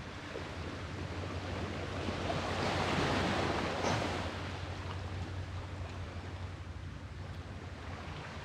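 Sea waves breaking and washing on the shore, one wave swelling to its loudest about three seconds in and then subsiding into a steady wash.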